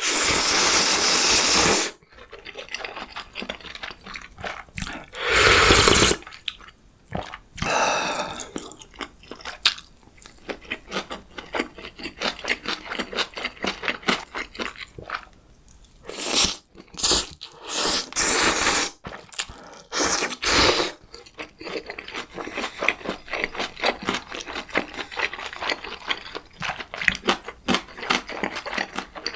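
Close-miked chewing of gimbap and ramyeon, with many small wet smacking clicks, broken by several loud noisy bursts a second or two long, the first right at the start, one about five seconds in, and a cluster of them about two-thirds of the way through.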